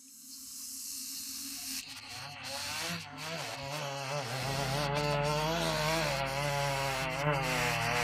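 Chainsaw cutting into a large tree trunk, its pitch wavering up and down as it works through the wood. It fades in over the first second or two, then runs steadily.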